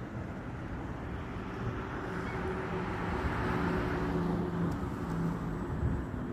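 A motor vehicle passing: engine and road noise swell to a peak about three to four seconds in, then ease off.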